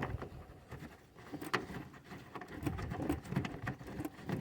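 Faint rustling with scattered light clicks and taps, from hands handling the trunk carpeting and its fittings.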